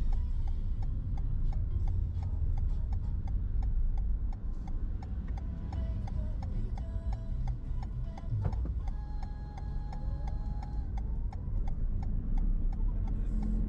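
Low road rumble of a car driving, with a steady ticking about four times a second and a few held tones partway through.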